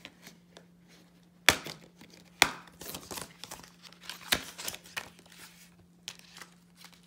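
Plastic Blu-ray case being handled and opened on a table: sharp clicks and knocks of the plastic, the two loudest about one and a half and two and a half seconds in, with lighter clicks and rustling between.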